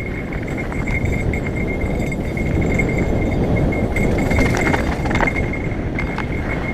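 Mountain bike rolling down a dirt trail: a steady rush of wind and tyre noise. Over it, a cheap bike bell, mounted loose on purpose, rings on and off without a break as the bike jolts. A few rattling clicks come about four to five seconds in.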